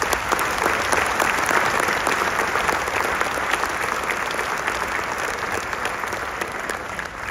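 Theatre audience applauding, a dense patter of many hands clapping that breaks out at once, is fullest in the first couple of seconds and slowly dies down.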